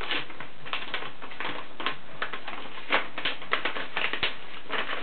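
Packaging being handled and unwrapped: an irregular run of sharp crinkles and crackles.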